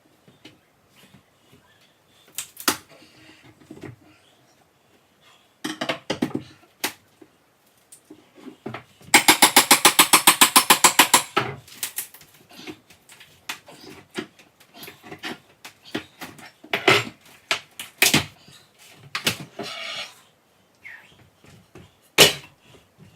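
Hammer and nail puller knocking and prying at a kitchen countertop backsplash: scattered sharp knocks and scrapes, with a loud run of rapid, even hammer taps in the middle, about ten a second for two and a half seconds.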